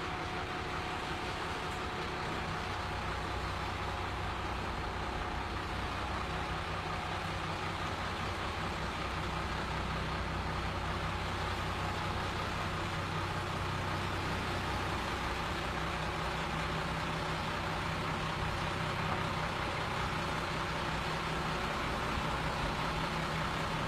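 International DT466 inline-six diesel engine running steadily with an even, unbroken note, newly swapped in for a Detroit 6V53 V6 and running well.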